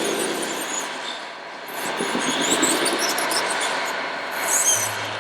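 Radio-controlled model construction machines running: small motors and gears with squeaking and clattering, a dip about a second and a half in, and a brighter burst of clicks near the end.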